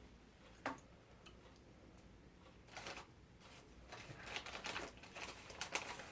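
Faint rustling and crinkling from wound-care supplies being handled, with a sharp click under a second in and a run of short rustles through the second half.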